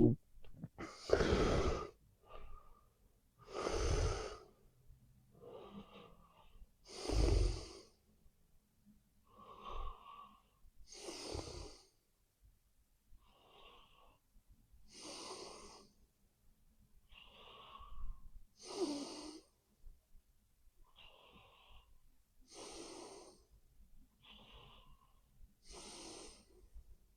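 A sleeping person snoring: a loud rasping snore roughly every three and a half to four seconds, each followed by a softer, thinner breath, in a slow steady rhythm.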